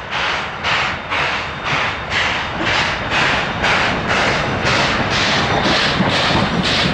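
Steam locomotive hauling passenger coaches past, its exhaust chuffing steadily about twice a second and growing louder as it approaches. Near the end the wheels of the coaches clatter over the rail joints.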